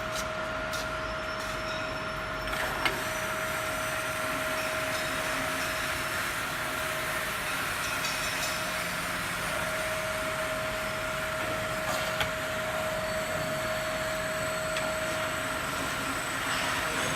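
Glass bottle washing machine running: a steady mechanical hum with a constant tone, broken by a couple of sharp clicks.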